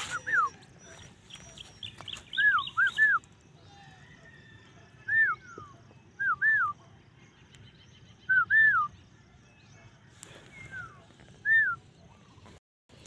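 Puppy whining: short high whimpers that rise and fall, one at a time or in twos and threes every couple of seconds, with faint bird chirps behind.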